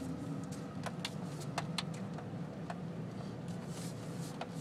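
Car driving, heard from inside the cabin: a steady low engine and road rumble, with scattered light clicks and knocks over it.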